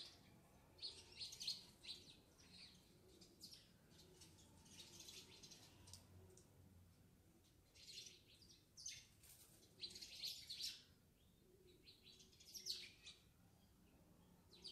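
Faint birds chirping in short, scattered bursts every second or two, under near silence.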